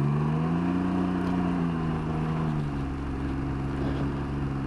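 Can-Am Ryker Sport's three-cylinder engine through a race exhaust, rising in pitch as it accelerates, holding, then easing off and settling to a steady lower note.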